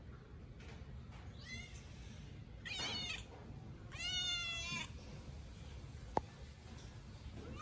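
A cat meowing three times, about one and a half, three and four seconds in, the last call the loudest and longest. A brief sharp click about six seconds in.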